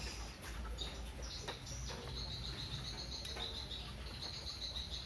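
A rapid trill of high chirps, starting about two seconds in and again near the end, over a few faint clicks from a battery charger and its cells being handled.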